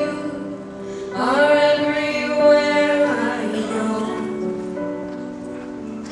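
Duet singing over sustained instrumental accompaniment: a voice comes in about a second in, sliding up into one long held note, then softer sung phrases as the accompaniment carries on.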